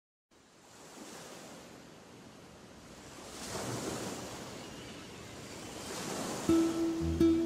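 Sea waves washing in, a hiss that fades in and swells twice. Near the end, plucked guitar notes begin over it.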